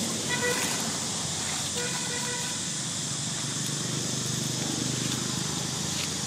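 Steady outdoor road-traffic noise with a vehicle passing, and two short flat-pitched horn toots in the first two and a half seconds.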